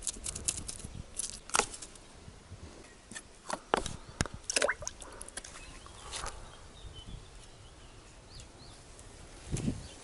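Scattered sharp clicks and taps of a knife working on small fish on a wooden board, with light handling knocks, then footsteps on grass near the end. Faint bird chirps in between.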